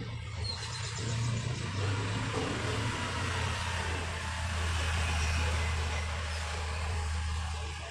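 Gloved fingers raking and rubbing through dry, dusty sand and ash in a plastic tub, a steady grainy rustle. Under it a louder steady low rumble swells about a second in and drops away at the end.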